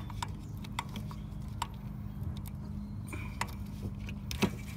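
Scissors snipping at an O2 sensor's wiring harness: a few short, sharp clicks and scrapes spaced irregularly, over a low steady hum.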